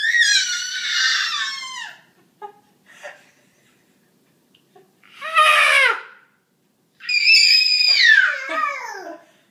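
Toddler screaming in three high-pitched shrieks: one at the start, a short one about five seconds in, and a longer one about seven seconds in, each sliding down in pitch as it ends.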